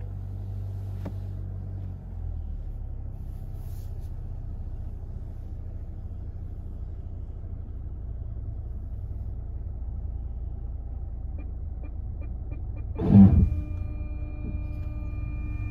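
Cabin sound of a 2022 Mitsubishi Outlander creeping backwards, with a low engine and road rumble. Near the end about five quick parking-sensor beeps, then a sudden loud jolt as the rear automatic emergency braking stops the car hard, followed by a steady warning tone.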